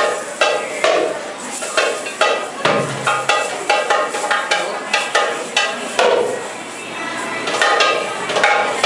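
Darbuka (goblet drum) played live in a fast rhythm of sharp, ringing strokes, with a deep bass stroke a little under three seconds in.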